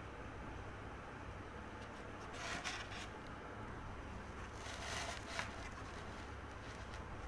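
Two short scraping sounds about two seconds apart, over a faint steady low hum.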